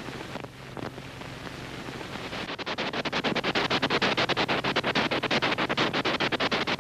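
Film projector running: a low steady hum, joined from about two and a half seconds in by a rapid, even mechanical clatter that grows louder.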